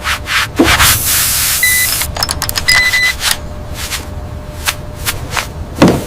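Wrench clicking and scraping as bolts are tightened, a run of sharp clicks through the whole stretch. A short hiss of air comes about a second in, and two short high beeps come around two and three seconds in, over a low rumble.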